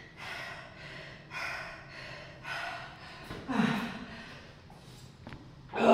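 A man panting hard after a heavy set of barbell squats, with deep gasping breaths about once a second. A little past the middle, and again at the end, a breath carries his voice, falling in pitch like a groan.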